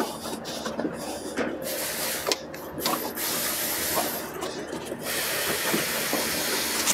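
Hands working the rubber drive belt off a snowmobile's secondary clutch: a few light clicks and rubbing sounds, then a steady hiss that comes in about a second and a half in, breaks off briefly twice, and holds from about five seconds on.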